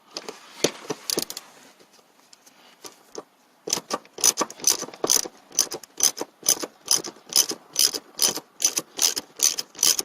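Ratchet wrench clicking steadily, about four clicks a second, as it backs out a long T50 Torx seat belt buckle bolt. It follows a few seconds of faint scraping and handling of the tool.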